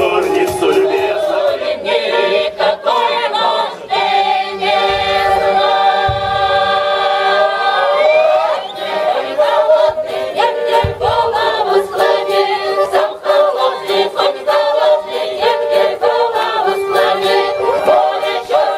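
A Cossack folk choir singing a lively song in chorus through a stage PA, over a quick beat of sharp strokes.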